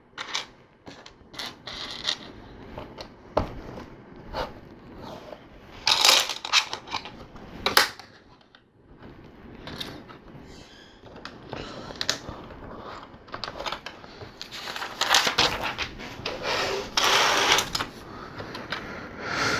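Plastic LEGO pieces clicking and rattling as they are handled and snapped together, with denser stretches of rattling, like sifting through a pile of loose bricks, about six seconds in and again for a few seconds near the end.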